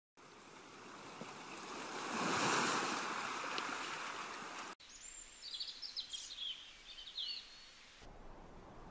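A wave surging onto a shore, swelling and then falling back, cut off abruptly near the middle; then a songbird sings a few short chirping phrases over faint hiss.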